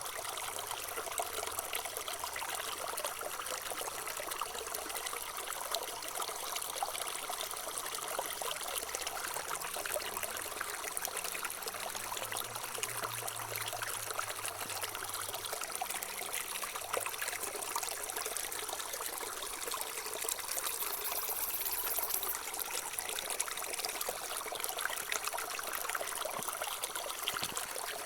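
Running water trickling steadily, a continuous bubbly splashing.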